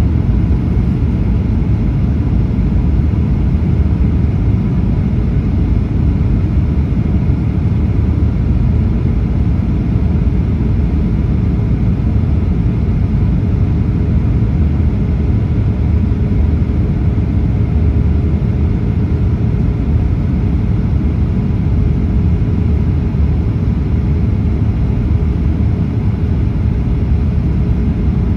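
Boeing 737 cabin noise: a steady, loud low rumble of engines and rushing air heard from inside the cabin, with a faint steady hum over it.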